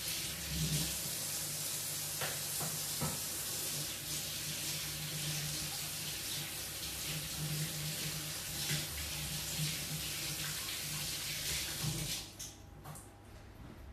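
Kitchen tap running into the sink as hands are washed under it, a steady splashing hiss; the water shuts off about twelve seconds in.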